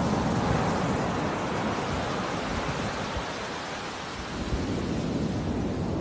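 Storm surf breaking and washing up a sandy beach, a steady rushing noise with a heavy uneven rumble of wind buffeting the microphone. It eases slightly about four seconds in, then builds again.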